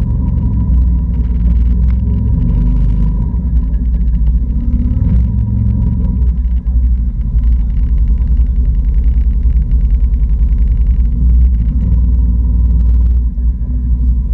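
Can-Am Outlander 650 ATV's V-twin engine running under way over rough grass, a loud low rumble; the engine note eases off about six seconds in.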